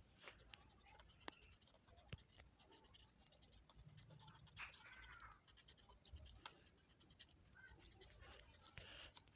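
Faint scratching of a felt-tip marker drawn over paper in short, quick strokes.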